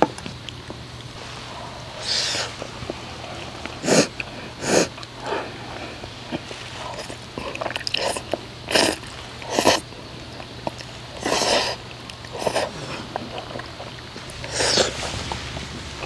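Eating sounds: thick udon noodles slurped from a bowl with chopsticks and chewed, in a string of short loud slurps and sniffs, with a few light chopstick clicks between them.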